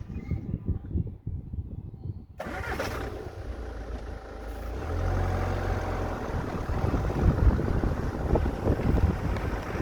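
Ford Mondeo Mk5 2.0-litre diesel engine under auto start-stop: quiet with a low rumble, then about two and a half seconds in it starts again with a sudden burst of noise, and from about five seconds it runs with a louder, steady low hum.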